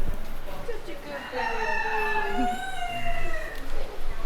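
A rooster crowing: one long cock-a-doodle-doo starting a little over a second in and lasting about two and a half seconds.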